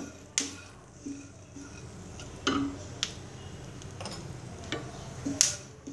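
Pumpkin seeds roasting in ghee in a pan, stirred with a spatula: about five sharp clicks and taps, scattered over the seconds, with a faint hiss underneath.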